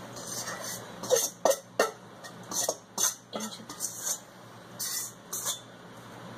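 A metal spoon scraping and knocking against a mixing bowl and a metal cake pan as crumbly crust dough is scraped out. Three sharp clinks come a little after a second in, followed by softer taps and scrapes.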